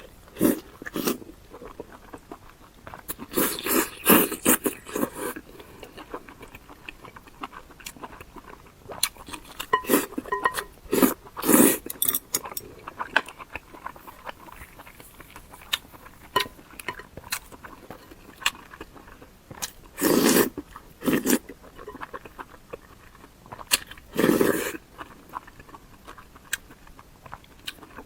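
Close-miked eating: bites and chewing, a run of irregular small mouth clicks broken by a few louder bites.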